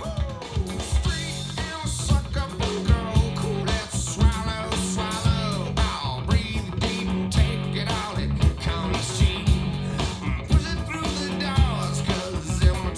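A song with singing, guitar and a heavy, steady bass beat, played through a JBL PartyBox 1000 party speaker with its Bass Boost 1 setting on.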